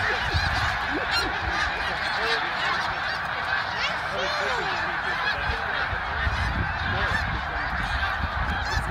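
A large flock of snow geese calling overhead: a dense, steady din of many overlapping honks.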